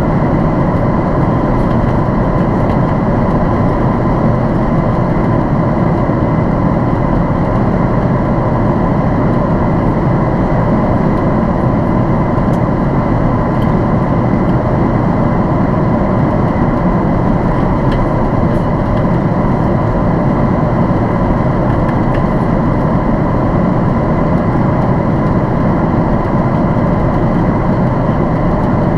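Steady cabin noise inside a Boeing 767-400ER airliner: jet engine and airflow noise as a constant rush with a steady whine on top.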